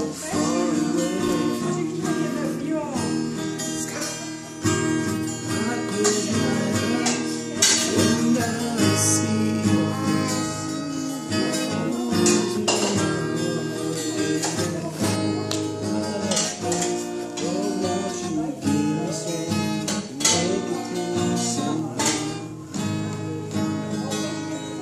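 Steel-string acoustic guitar strummed in steady chords, played as worship-song accompaniment.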